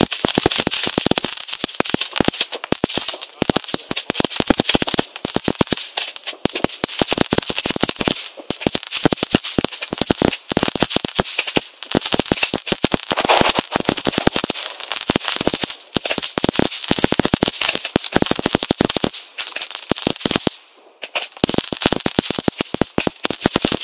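Ground firework fountain crackling: a dense, rapid patter of small pops over a fizzing hiss, easing off briefly near the end before picking up again.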